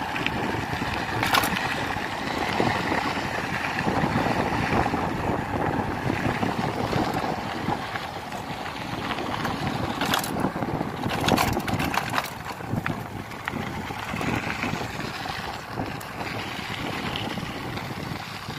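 Wind buffeting the microphone of a camera on a moving mountain bike, mixed with the tyres rolling over a dirt road. Sharp rattles from bumps come about a second in and again in a cluster around ten to twelve seconds.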